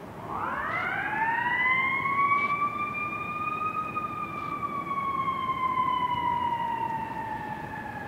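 Fire truck siren wailing: it winds up quickly in pitch over about a second and a half, holds, then slowly falls away.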